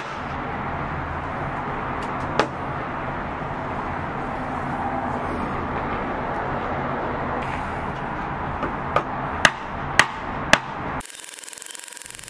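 16-ounce steel hammer striking a compacted aluminium foil ball: a single sharp blow about two seconds in, then a quick run of blows about half a second apart near the end, over a steady background rush.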